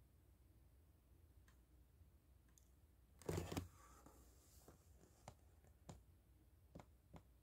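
Near silence broken by handling of a book held in the hands: a short rustle about three seconds in and a few light clicks.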